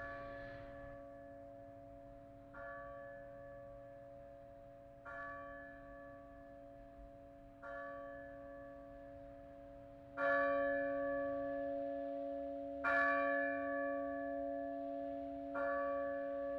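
A single large church bell tolling slowly, struck seven times about two and a half seconds apart. Each stroke rings on with a steady hum beneath it, and the strokes grow louder about ten seconds in.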